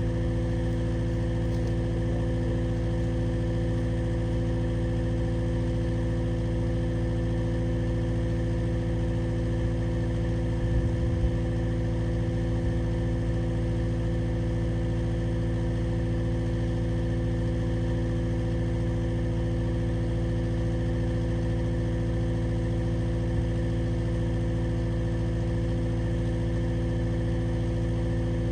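An engine idling steadily at a constant speed, with no revving.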